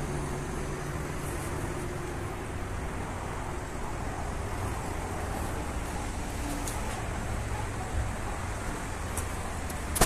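Steady whooshing hum of large wall-mounted greenhouse exhaust fans running, with a low drone underneath.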